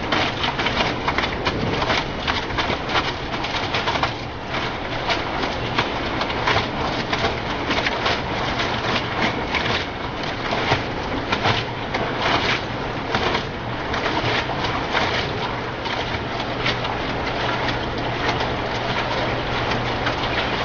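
LG front-load washing machine running, with loud, irregular thumping and rattling over a steady low hum.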